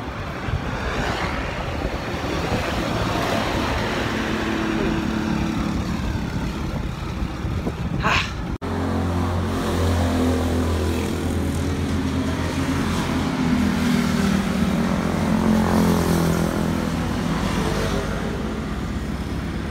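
Road traffic noise: an even rushing of wind and road for the first half, then, after an abrupt cut, a motor vehicle's engine with a steady low hum for several seconds.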